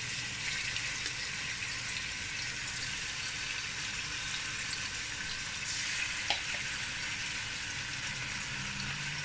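Hot sunflower oil sizzling steadily in a cooking pan, ready for frying chicken, with a small click about six seconds in.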